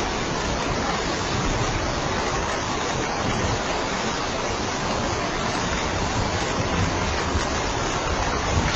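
Steady rain falling on a roof, an even continuous hiss with a low rumble underneath.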